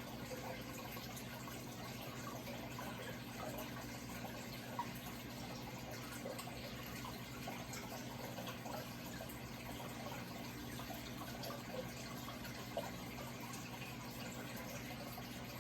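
Steady running, trickling water with small drips and splashes, over a faint low steady hum.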